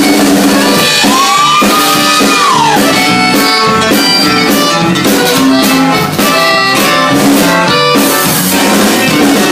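Live norteño band playing an instrumental passage: accordion, guitar, congas and drums together, with one note sliding up and back down about a second in.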